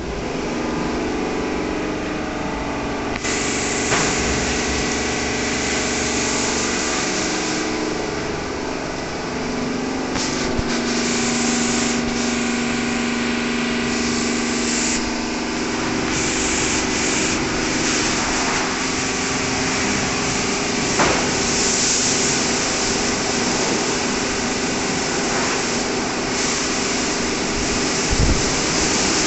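WashTec SoftCare 2 Pro rollover car wash running its high-pressure stage: water hissing from the side and wheel high-pressure nozzles over a steady hum from the machine's pump and drive motors. The hiss of the spray comes in suddenly about three seconds in.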